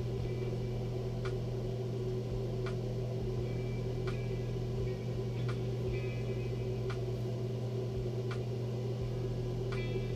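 Steady low mechanical hum of a kitchen appliance running, with a faint short tick repeating evenly about every one and a half seconds.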